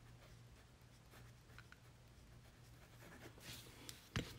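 Faint scratching of a Pilot Varsity fountain pen's stainless steel medium nib writing on paper with the nib turned upside down, a way of writing that makes it skip a little. A single sharp tap about four seconds in.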